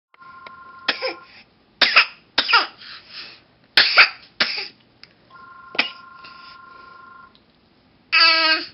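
A person coughing in a series of sharp, separate coughs, about six of them. Near the end comes a short, loud, high-pitched vocal sound.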